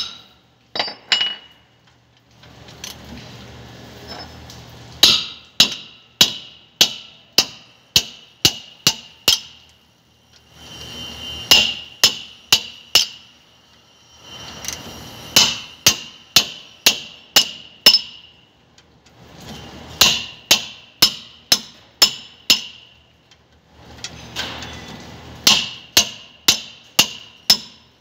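Hammer blows on the steel rear wheel hub of a Hyundai bus, about two a second in bursts of four to nine with short pauses between, each blow ringing with a bright metallic note.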